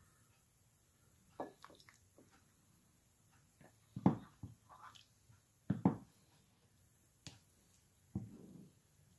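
Red plastic ladle scooping thick lamb stew from a cooking pot and tipping it into a bowl: a few short knocks and scrapes against the pot, with wet plops of stew, the loudest about four and six seconds in.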